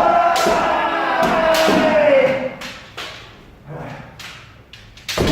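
A kendo player's long, drawn-out kiai shout, held for about two and a half seconds and dropping in pitch as it ends, with sharp knocks of shinai strikes and stamping footwork around it and a loud strike near the end.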